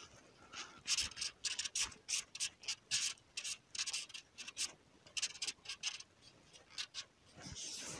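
Hands handling fishing tackle right at the microphone while float-rod lines are unwound: a quick run of short rubbing and scraping strokes, about three a second, that stops about a second before the end.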